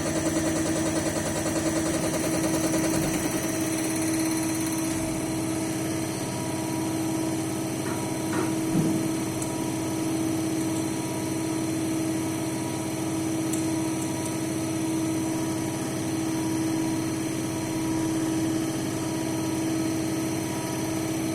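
EPS916 diesel injector test bench running a Caterpillar 3412E injector test: a steady mechanical hum with a fast, even pulsing from the injector firing. The sound settles into steadier running about two to three seconds in.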